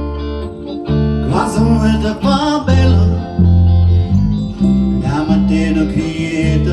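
A small band playing a song live: an electric bass guitar holding low notes under an acoustic guitar and keyboard, with a man singing two phrases, one after about a second and one from about five seconds in.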